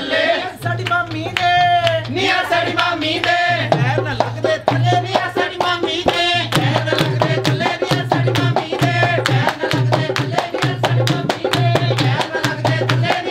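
Punjabi folk wedding music: a hand drum and claps keep a fast, even beat under a singing voice, with a low note pulsing along with the rhythm.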